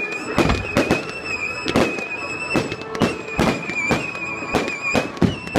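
Fireworks, likely a multi-shot cake, firing in rapid succession: sharp bangs about two a second with crackle between them. A steady high-pitched tone runs under the bangs.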